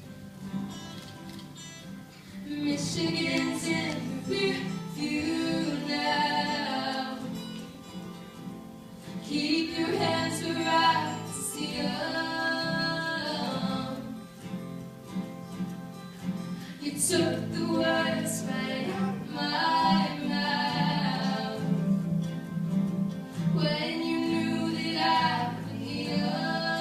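A song: a voice sings long held phrases over guitar accompaniment.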